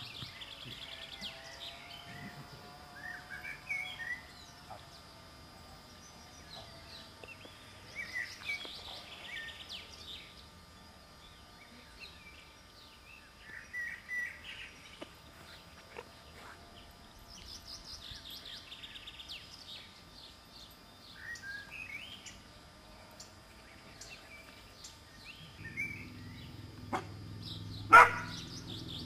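Songbirds chirping and singing in repeated short phrases. Near the end comes a single loud, sharp click, over a low rumble.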